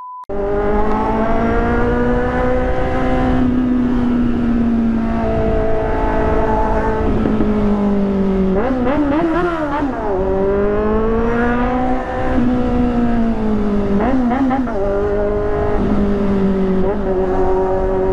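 Kawasaki Z800 inline-four engine and exhaust heard from the rider's seat, revving up and easing off through the gears, with quick rising and falling pitch swings about nine seconds in and again around fourteen seconds.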